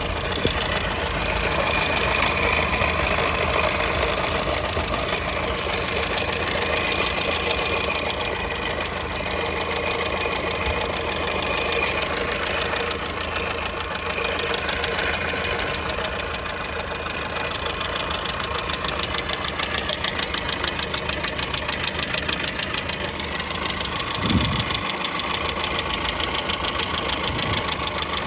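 2002 Skoda Fabia engine running at idle with a fast, regular knock from inside the engine, its cause not yet known.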